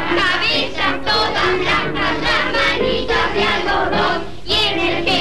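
A choir of children singing a song with instrumental accompaniment, with a brief break in the phrase near the end.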